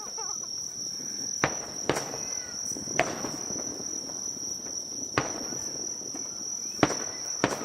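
Fireworks shells bursting: six sharp bangs at uneven intervals, the loudest near the end, over a steady high-pitched trill.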